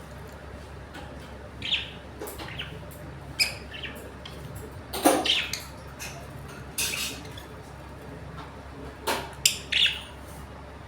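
Pet lovebirds chirping, with short, sharp calls coming every second or two.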